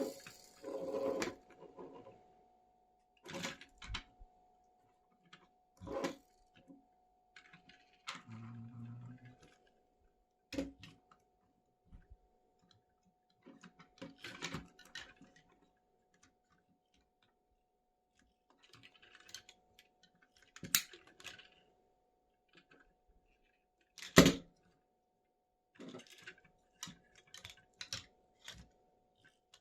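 Plastic toy construction vehicles being handled and unboxed: scattered clicks, taps and rattles of hard plastic parts with quiet gaps between, and a short low buzz about eight seconds in.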